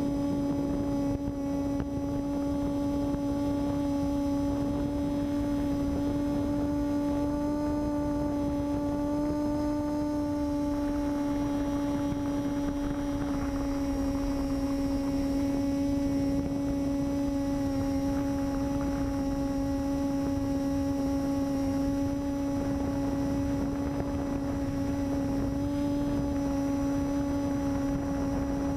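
Electric motor and propeller of a small FPV aircraft in steady powered flight, heard as one steady buzzing drone whose pitch wavers slightly, over a rumble of wind.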